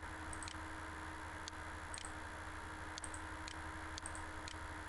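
Computer mouse buttons clicking, about ten faint, irregularly spaced clicks as sketch lines are drawn and a tool is picked, over a steady low electrical hum.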